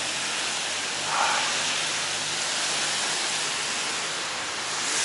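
Steady hiss of heavy rain and wet-road spray while riding through a downpour, with a brief louder swish about a second in.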